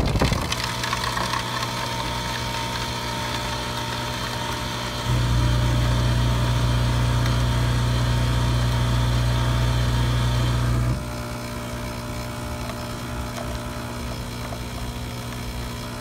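Coffee dispensing machine running as it pours a drink into a foam cup: a steady mechanical hum that turns louder and deeper about five seconds in, then drops back about eleven seconds in.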